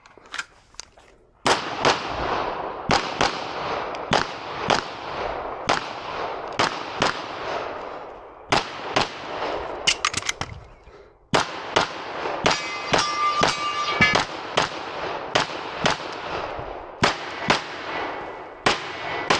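A pistol fired in a timed match string: about thirty shots at an uneven pace, in quick pairs and short runs with brief pauses, each shot ringing on in a long echo that fills the gaps between them. A steady electronic tone sounds for about a second a little past the middle.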